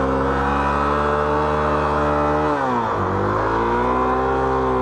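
Honda XR 250 Tornado's single-cylinder four-stroke engine running under way at a steady pitch. About two and a half seconds in, the revs drop briefly, as at a gear change, then climb back and hold steady.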